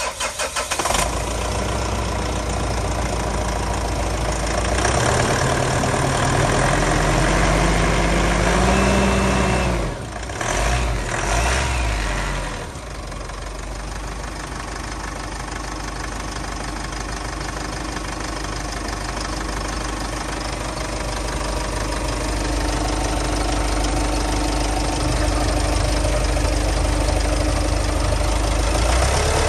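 2013 Mitsubishi Triton's 2.5-litre four-cylinder turbo diesel (DI-D) turning over on the starter and catching within about a second, then running. The revs climb for a few seconds, drop back about ten seconds in with a couple of short blips, then settle to a steady idle.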